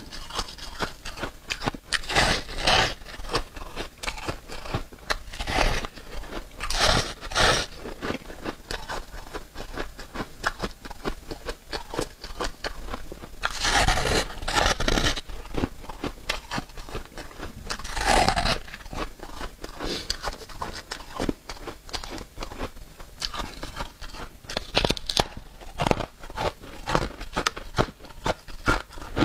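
Close-miked biting and chewing of flaky freezer frost: crunchy, crackling bites, with a few louder bites spread through between steady crunching chews.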